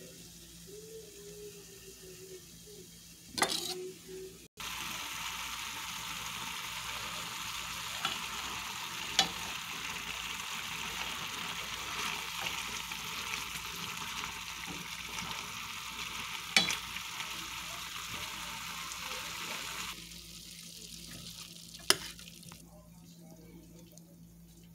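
Chicken pieces with chopped bell peppers and onion sizzling as they stir-fry in a pan, a steady hiss that starts suddenly about four seconds in and stops about twenty seconds in. A few sharp knocks of the stirring utensil against the pan stand out, the loudest just before the sizzling starts.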